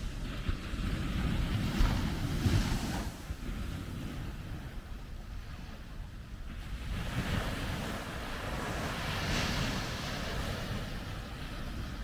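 Small ocean waves breaking on a sandy shore and washing up the beach: two surges of surf hiss, one about a second in and another past the middle, over a steady low rumble.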